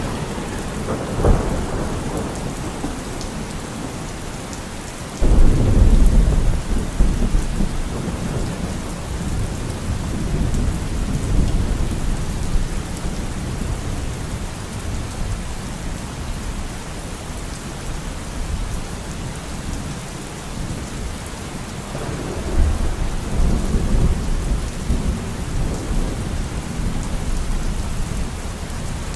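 Steady rain falling, with thunder: a short clap about a second in, a sudden loud peal about five seconds in that rumbles on for several seconds, and another long rumble near the end.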